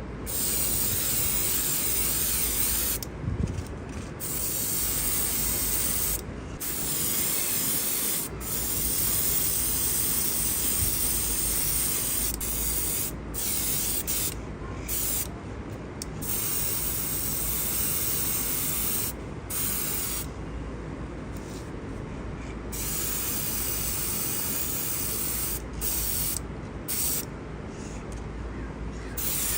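Paint being sprayed onto a diecast model in repeated hissing bursts of a few seconds each, with short breaks between them.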